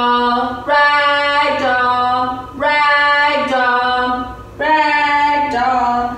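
A woman singing unaccompanied in a simple chant. She holds long notes in pairs, with short pauses for breath between the pairs.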